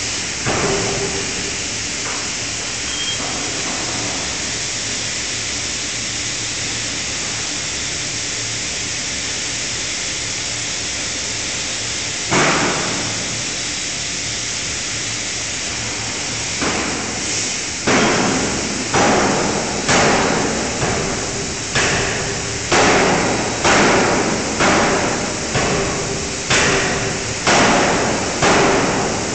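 A 5-ton fully hydraulic closed-die forging hammer striking: one blow about twelve seconds in, then a run of blows about once a second from about seventeen seconds, each with a short ring, over a steady hiss.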